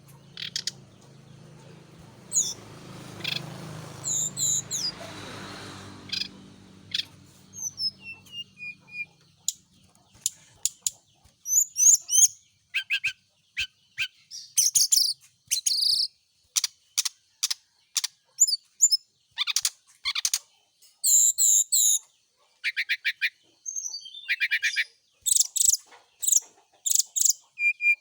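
Brown-chested jungle flycatcher singing: short, rapid series of high chirps and trills repeated again and again, thickening from about ten seconds in. A low rumble fades out over the first nine seconds or so.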